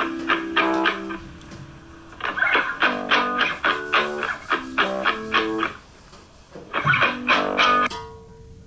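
An isolated guitar part from a pop track played back on its own: short, rhythmic plucked-chord phrases with two brief gaps, stopping about eight seconds in.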